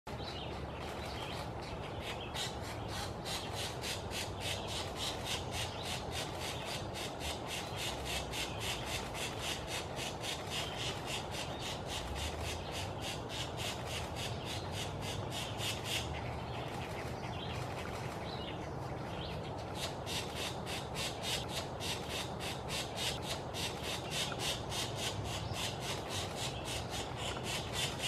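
Pileated woodpecker nestlings giving fast, repeated begging calls, about four a second, while an adult feeds them at the nest hole. A little past the middle the even rhythm breaks for a few seconds, then resumes.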